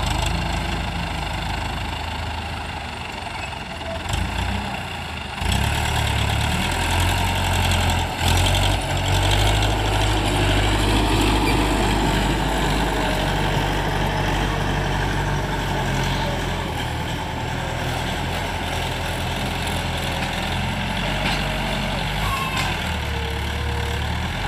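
TAFE tractor's diesel engine running steadily under load while pulling a tine cultivator through dry soil. The sound steps up abruptly about five seconds in.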